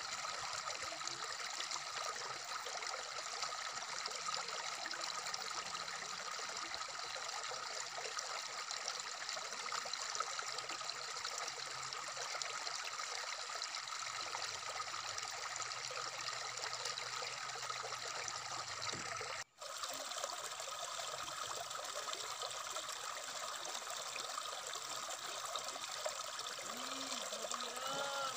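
Shallow stream running over rocks, a steady babbling rush of water. It cuts out for an instant about two-thirds of the way through, then carries on unchanged.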